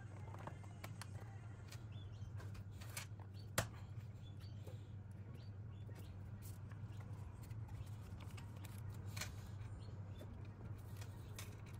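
Faint handling sounds while filling a glass spice shaker with a plastic lid: scattered light clicks and rustles of glass, plastic and a paper spice packet, one sharper click a few seconds in, over a steady low hum.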